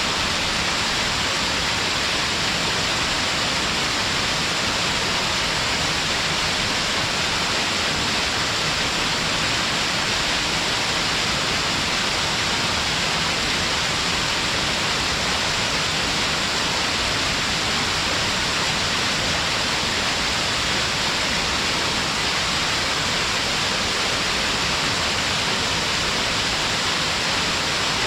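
Small stepped waterfall on a mountain river, a steady rush of falling water, strongest in the hiss.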